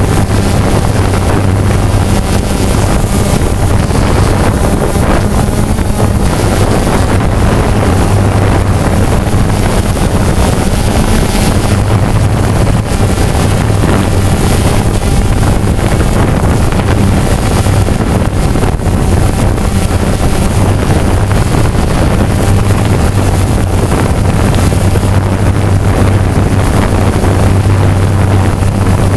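DJI Phantom 2 quadcopter's motors and propellers running with a steady low hum, picked up by the camera mounted on the drone, with wind rushing over the microphone.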